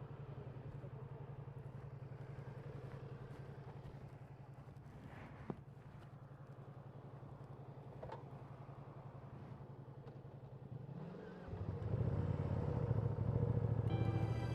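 Ducati Panigale V2 motorcycle engine running at a steady, even note while riding, with one sharp click about halfway through. It grows much louder and fuller for the last few seconds.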